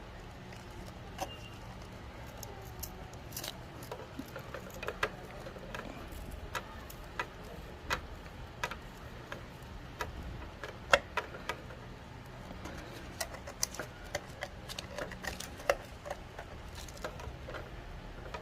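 Irregular small clicks and taps of screws, a small screwdriver and a plastic switch being handled and fitted into a wall box, with a sharper click about eleven seconds in, over a low steady hum.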